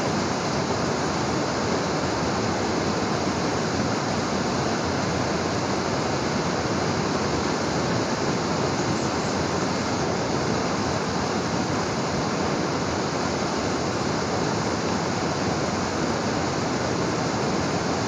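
Waterfall pouring, a steady unbroken rush of water.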